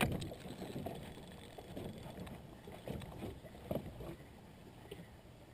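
Scattered knocks and bumps in a small boat, with a sharp knock right at the start and softer irregular thumps after it.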